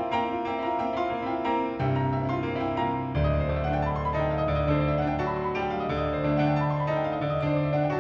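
Grand piano playing a busy passage of rapid notes, with deep bass notes coming in about three seconds in.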